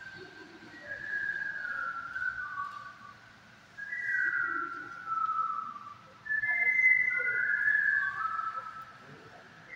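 A person whistling a tune in held and sliding notes, phrase by phrase with short pauses between.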